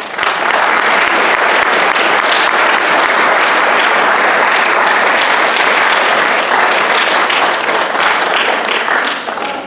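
Audience applauding. The clapping starts at once, holds steady, and dies down near the end.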